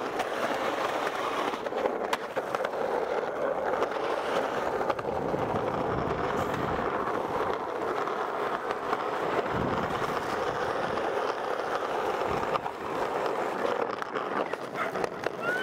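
Skateboard wheels rolling over rough asphalt, a continuous rumbling roll with a few sharp clicks from the board.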